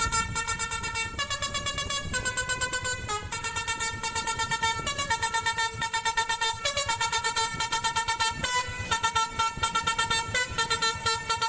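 Telolet bus horn, a multi-trumpet musical air horn, playing a tune: held notes that step to a new pitch every second or two, each note pulsing rapidly.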